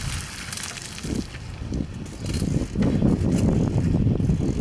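Bicycle being ridden: rattling and clicking from its chain and freewheel, over a low rumble that grows louder nearly three seconds in.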